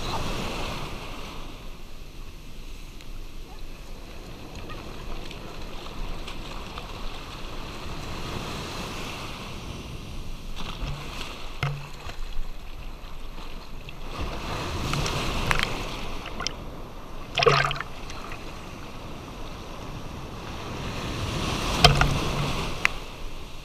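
Shallow breaking surf foaming and washing around a camera held at the waterline, surging as each wave comes in, with several sharp close splashes, the loudest about three-quarters through and near the end.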